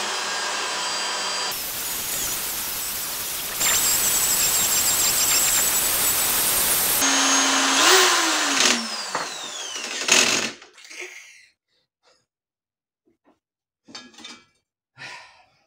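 Electric drill spinning a fine Scotch-Brite disc against the zinc-plated body of a motorcycle rear shock absorber, a steady scrubbing whir that changes level a few times. About ten seconds in, the drill stops and winds down, and a few faint knocks follow.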